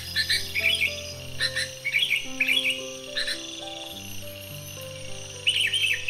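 Yellow-vented bulbul (trucuk) singing repeated short chirping phrases of quick up-and-down notes in several bursts. Soft background music with sustained low notes runs underneath.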